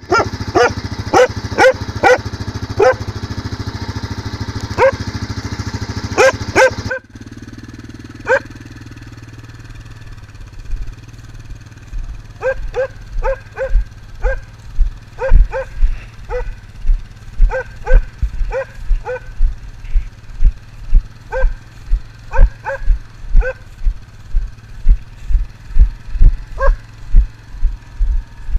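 Hunting dogs barking repeatedly in short sharp barks over a steady quad bike engine. After a sudden cut about 7 s in, the engine is quieter and the barks return from about 12 s, over regular low thumps about twice a second from footsteps jolting the camera.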